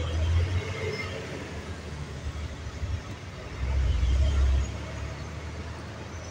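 Moving vehicle's engine, road and wind noise: a low rumble with traffic noise, swelling briefly near the start and again about four seconds in.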